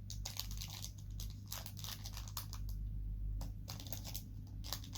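Thin plastic packaging crinkling and tearing in irregular crackles as a small sealed accessory pouch is pulled at by hand, hard to get open.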